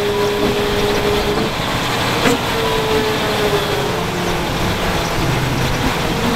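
MAN tipper truck's diesel engine running while its hydraulics raise the tipping body, with a steady whine over the engine noise.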